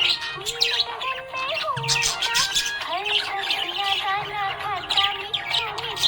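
Budgerigars chirping and warbling in quick, busy runs of high notes, with music playing under them.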